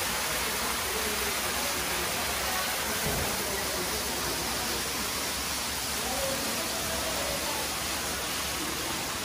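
Small ornamental rock waterfall splashing steadily, a continuous rush of falling water.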